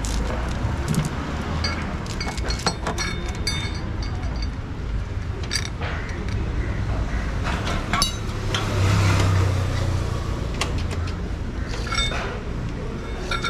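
Scattered metallic clinks and taps of tools and bike parts being handled, over a steady low traffic rumble that swells briefly past the middle.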